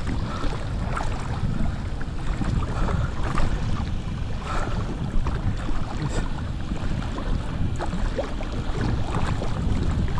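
Wind buffeting the microphone over shallow seawater sloshing, with small irregular splashes.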